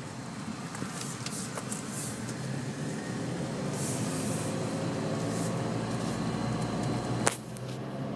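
Engine and tyre noise inside a moving car's cabin, growing louder as the car gathers speed, with one sharp knock about seven seconds in.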